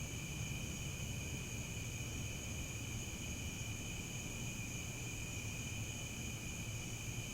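Crickets chirping in a steady, unbroken chorus of high-pitched trilling, over a low steady rumble.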